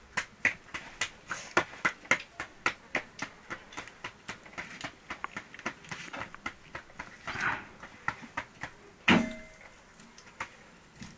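Sharp knocks at an even pace of about two a second, getting fainter and less regular after about four seconds, with one heavier thump about nine seconds in.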